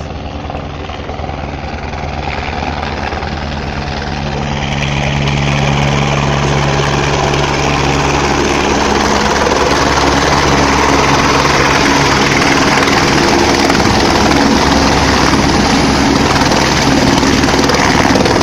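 Helicopter coming in to land, its rotor and turbine noise growing louder over the first several seconds as it closes in, then holding loud and steady as it hovers over the pad and settles onto it.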